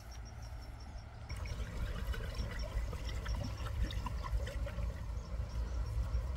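Water poured from a plastic basin into a small portable water pump, priming it before starting: a trickling, splashing pour that begins about a second in.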